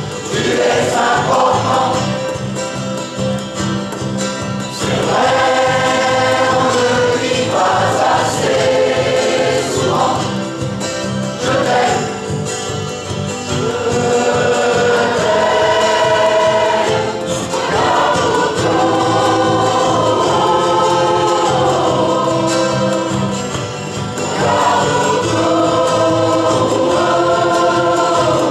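Mixed choir of men and women singing a song in parts, with long held notes and short breaths between phrases, accompanied by guitars.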